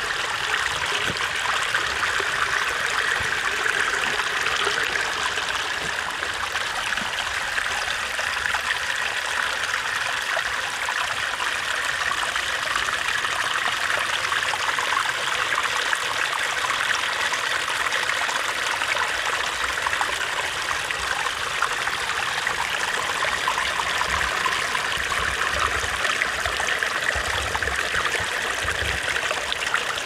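Small mountain stream trickling and splashing down over mossy rocks: a steady, even rush of running water.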